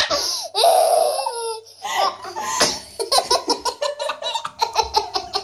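Young child's belly laughter: a long high squeal of laughter that falls in pitch over the first second or so, then a run of quick rhythmic giggles, several a second.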